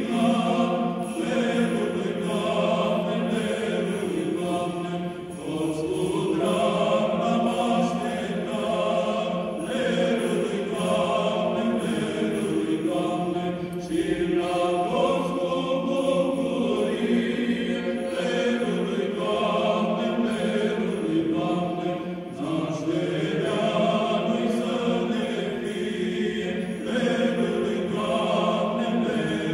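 Male choir of Orthodox monks singing a Romanian Christmas carol (colindă), in long phrases about eight seconds each with a short breath between them.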